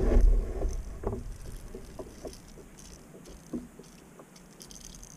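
Handling noises while a small fish is unhooked aboard a fishing kayak: a burst of low rustling and knocking at the start, then scattered light clicks and taps that grow fainter.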